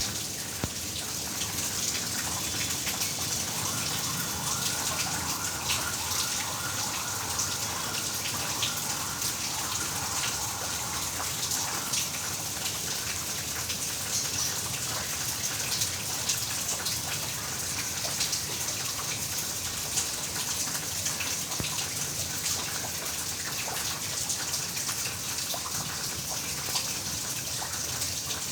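Heavy rain falling steadily, a dense hiss full of the patter of individual drops.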